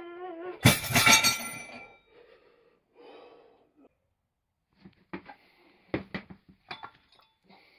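A strained groan from the lifter breaks off as the loaded Grip-topz Stub and its iron weight plates come down about half a second in with a loud metallic clank and ringing. Several lighter knocks and clinks follow later as the plates are handled.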